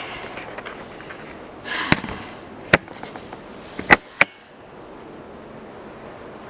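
Four sharp knocks or clicks spread over about two and a half seconds, with a short rustle just before the first.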